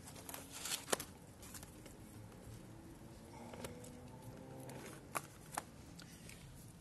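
A small hardcover notebook being handled: the cover flipped open with papery rustles and taps, a pen note jotted, and a couple of sharp taps as it is shut about five seconds in.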